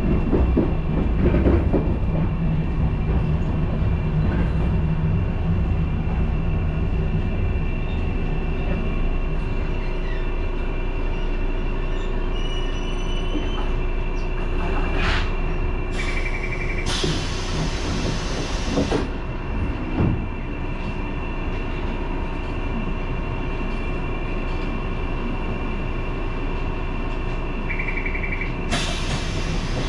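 Randen (Keifuku Electric Railroad) railcar running along the Kitano Line, with steady wheel and motor running noise and a faint wheel squeal. Two short bursts of hiss cut in, one around the middle and one near the end.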